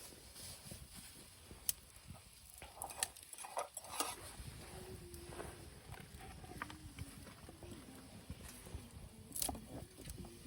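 Scattered sharp clicks and knocks, a few of them louder, over a faint low background.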